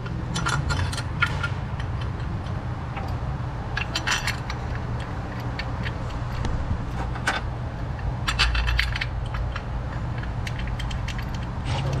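Metal tools and hardware clinking and scraping during hand work on an engine's motor mount, in a few short bunches of light rattling clicks, over a steady low hum.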